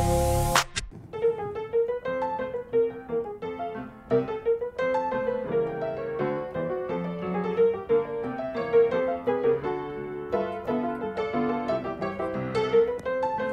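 Background piano music: a steady run of notes over lower chords. It starts just after a brief click less than a second in.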